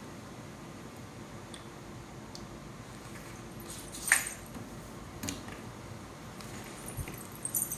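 Steady low room hum, broken about four seconds in by one sharp clack and then a few lighter clicks near the end: plastic ball-pit balls knocking together as a toddler moves among them.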